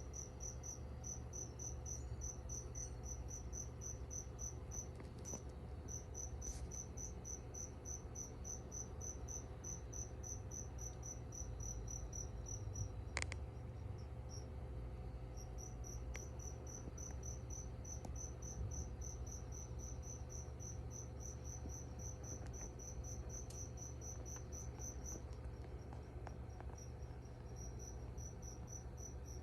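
A cricket chirping in a fast, even, high-pitched trill, pausing twice, with a single sharp click near the middle.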